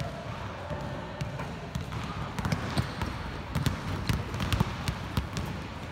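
Several basketballs bouncing irregularly on a wooden gym floor: overlapping thuds and knocks, coming thicker and louder about halfway through.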